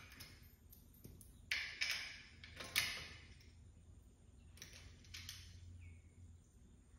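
A few quiet, short metallic scrapes and clicks, four or five separate strokes, as a caster is fitted to the steel engine storage cart by hand.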